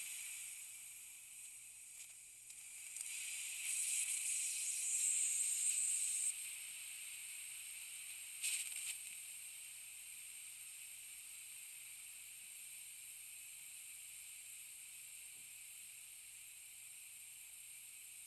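Compressed air slowly leaking from an air tank: a steady high hiss that swells louder for a couple of seconds about four seconds in, gives a brief sharper spurt near the middle, then settles to an even hiss.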